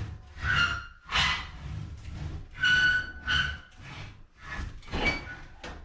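Sheet-metal stovepipe and steel stove squeaking and scraping in a series of short, high squeals, about six in all, as the stove is tilted and worked back until the pipe sections lock together.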